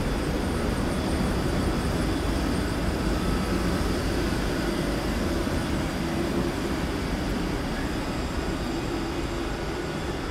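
Alstom Citadis electric tram moving slowly along the platform and coming to a stop, a steady hum with a faint high whine from its traction equipment.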